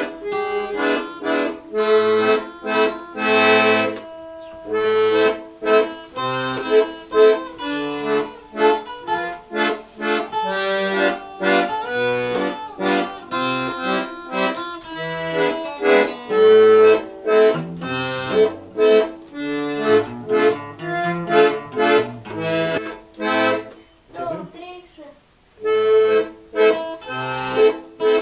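Button accordion being played: a quick melody on the right-hand buttons over short, evenly placed bass notes, with a short break a few seconds before the end.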